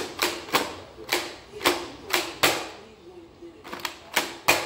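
Plastic Nerf blaster being worked, giving a run of sharp clicks and knocks at about two a second, with a short pause partway through.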